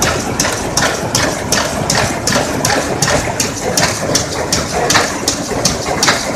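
Terry towel weaving loom running, its sharp clacks repeating evenly about three times a second over a steady mechanical din.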